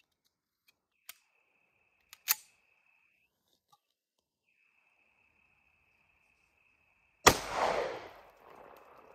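A Tisas 1911 pistol fires one shot about seven seconds in, and the report dies away over about two seconds. A short sharp click comes a few seconds earlier.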